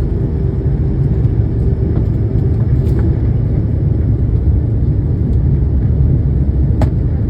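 Airliner engines at takeoff power heard inside the passenger cabin: a loud, steady low rumble during the takeoff and climb-out. A faint steady tone fades out about three seconds in, and there is a single short click near the end.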